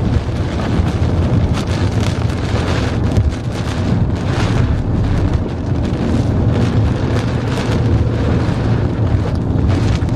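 Severe squall-line wind buffeting a moving car, heard from inside the cabin as a loud, steady rush with gusty surges over the drone of the car on the road.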